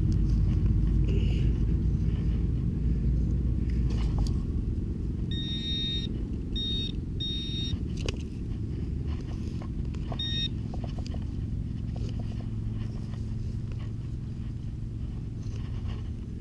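Detector beeping in three short electronic bursts between about five and eight seconds in and once more near ten seconds, signalling metal in the hole: a buried sprinkler head. Under it runs a steady low rumble, with a few soft knocks from digging.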